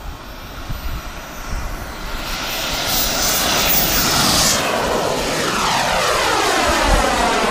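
Radio-controlled model F-16 jet's engine whining as the model runs low along the runway and climbs away. It grows louder from about two seconds in, then its pitch sweeps steadily down as it passes and pulls away.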